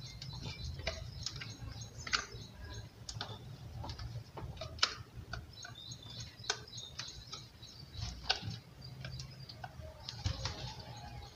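A screwdriver driving the fixing screws of a plastic wall switch-board cover plate, making irregular light clicks and scrapes of metal on plastic.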